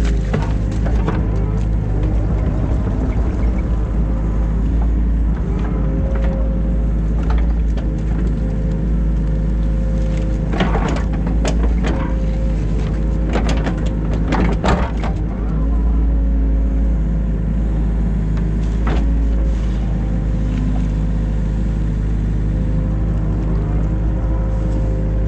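New Holland Kobelco E50.2 excavator's engine running steadily. There is a cluster of sharp knocks and clatters about halfway through and one more a few seconds later.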